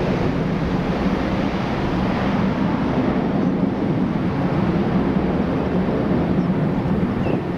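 Twin-engined Airbus A330 jet airliner rolling along the runway, its engines giving a loud, steady low rumble.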